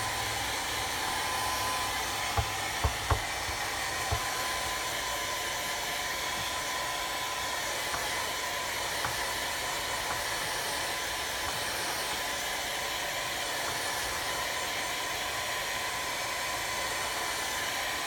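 Handheld hair dryer blowing steadily on its low setting, drying glue. A few soft knocks about two to four seconds in.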